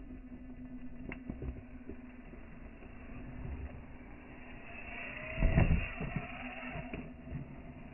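Traxxas TRX-4M scale RC crawler driving over rock: a steady hum from its small electric motor and drivetrain, with scattered clicks and scrapes. About five and a half seconds in, a short, loud burst with a rising whine.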